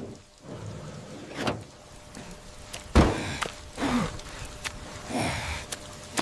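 A series of heavy thumps and knocks, the loudest about three seconds in.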